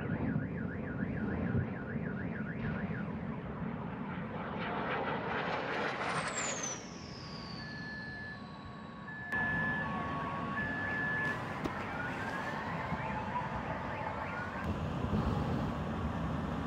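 Car alarms going off over a low rumble: first a rapid warbling alarm, then beeps alternating between a high and a low pitch and tones sweeping upward. About six seconds in, a high whistle glides steadily downward.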